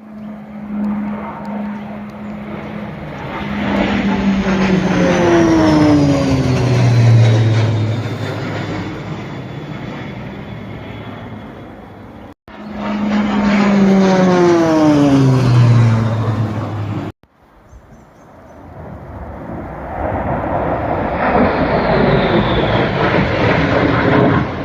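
Low-flying military aircraft passing: twice, a loud pitched hum with a high whine sweeps down in pitch as an aircraft goes by. After a cut, a rushing roar swells as another aircraft approaches.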